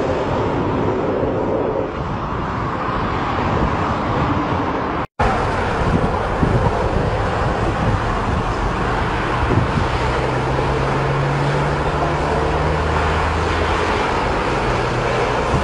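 Jet engine noise from a fighter jet passing overhead, a steady rushing sound. It cuts out for an instant about five seconds in, where one clip is spliced to another.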